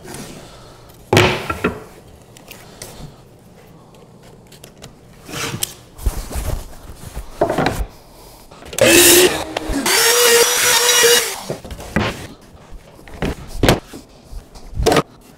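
A miter saw spins up with a steady whine that steps up in pitch and cuts through a piece of wood for about two seconds midway. Scattered wooden knocks and thumps come before and after as pieces of wood are handled.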